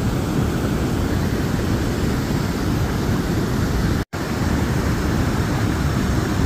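Steady rushing of turbulent river whitewater, a dense even noise heaviest in the low end. The sound cuts out completely for an instant about four seconds in.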